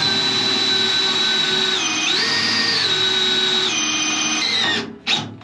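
Cordless drill boring a hole through the floor panel into a beam. The motor whines steadily and dips in pitch briefly about two seconds in and again near four, as it loads up in the cut. It stops about five seconds in.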